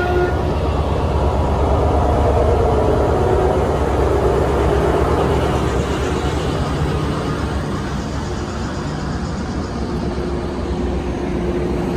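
Steady low rumble of a standing Coaster commuter train, its diesel locomotive running, with a humming tone that wavers in pitch a few seconds in and holds steady near the end.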